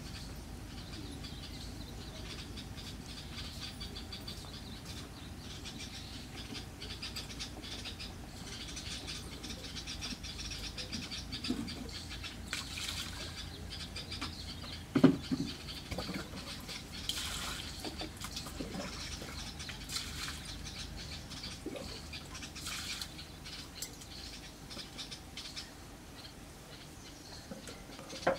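Outdoor ambience with small birds chirping in quick, high ticks throughout. One sharp knock comes about halfway through.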